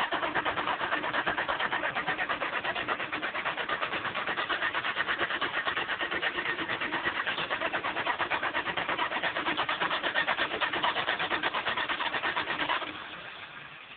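1975 Dodge 318 small-block V8 running with a rapid, even ticking clatter from the valvetrain, which the owner suspects is a flat camshaft lobe or a bad lifter. Near the end the sound drops off and dies away as the engine winds down.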